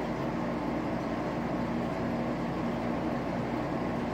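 Aquarium pump running with a steady hum and an even hiss.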